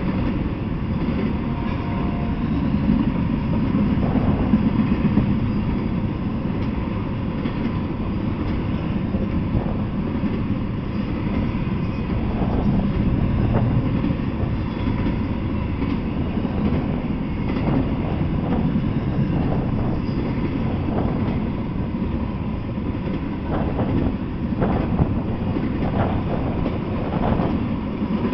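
Intermodal freight train cars rolling past, double-stack container well cars and flatcars carrying semi-trailers: a steady low rumble of steel wheels on rail. Irregular clanks and wheel clicks come through from about halfway on.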